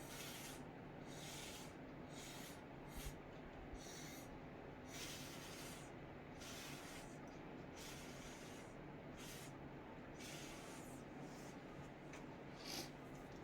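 Short puffs of breath blown through a drinking straw onto wet acrylic paint, about a dozen at irregular intervals, each a brief soft hiss. A steady low air-conditioner hum runs underneath.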